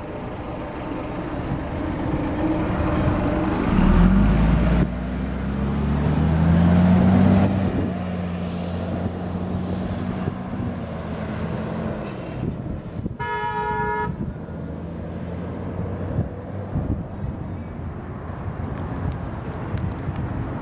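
Road traffic passing close by: a vehicle's engine loud and rising in pitch as it accelerates past, about four to seven seconds in. About thirteen seconds in, a single short car-horn toot.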